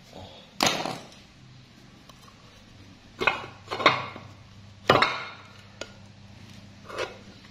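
Steel pick levering at a tight oil seal seated in a Yamaha RX-King's aluminium crankcase. It makes a handful of sharp metallic clinks and scrapes spread over several seconds, the loudest four in the first five seconds and a smaller one near the end. The seal is stuck hard and resists coming out.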